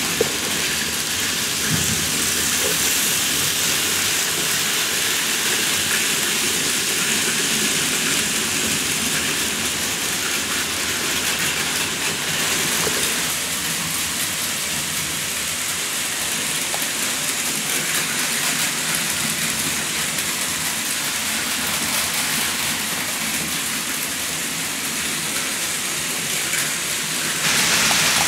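Plarail Advance and KATO N-gauge model trains running on their track: a steady whirring, rattling noise of small motors and wheels on rails. It grows louder near the end.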